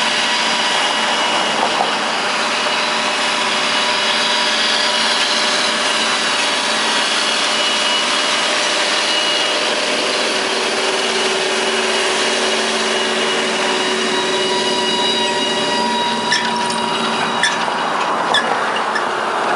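A John Deere tractor pulling a wide disc harrow through tilled soil: a steady engine drone mixed with the hiss and rattle of the disc gangs and harrow tines in the dirt. A few sharp metal clanks from the implement come near the end.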